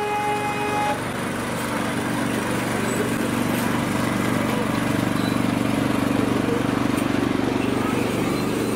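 Miniature railway locomotive sounding a single horn note that ends about a second in, then its engine running steadily and growing louder as it hauls open passenger carriages towards and past the listener.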